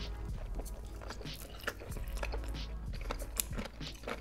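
Close-miked eating sounds: biting into and chewing Hot Cheetos–crusted fried chicken coated in cheese sauce, with wet, sticky smacks and scattered crunchy clicks, over a low background music bed.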